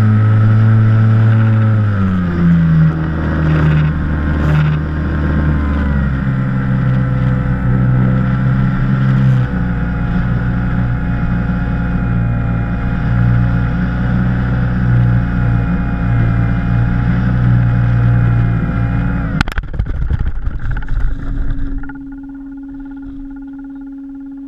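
An RC plane's motor and propeller running loud and steady from on board, dropping in pitch in steps as the throttle comes back. About three-quarters of the way through there is a sudden knock as the plane comes down on the field, followed by a couple of seconds of rough scraping. After that the motor is gone and only a quieter steady tone remains.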